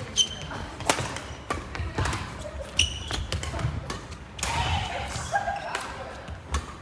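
Badminton rally: rackets striking the shuttlecock in a quick series of sharp knocks, with shoes squeaking on the court floor.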